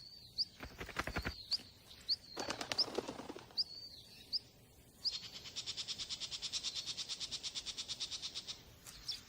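A small songbird calling: a string of short, high, upswept chirps, then a fast, even trill starting about five seconds in and lasting about three and a half seconds.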